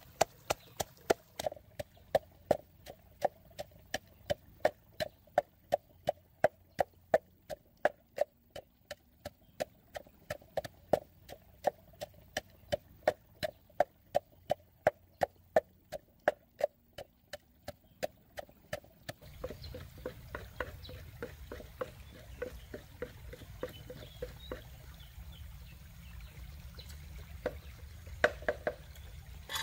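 Wooden pestle pounding chilies, garlic and rock salt in a wooden mortar: a steady knock about two to three times a second. About two-thirds of the way in the knocking gives way to the steady rush of a shallow stream, with a few fainter knocks.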